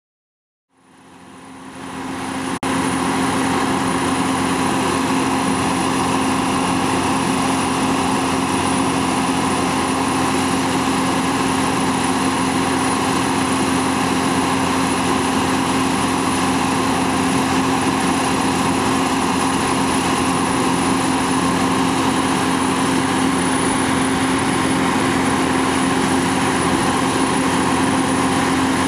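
Fire truck engine running steadily at speed to drive its water pump, with a hose jetting water, during a pump test. The drone fades in over the first couple of seconds and then holds even and unbroken.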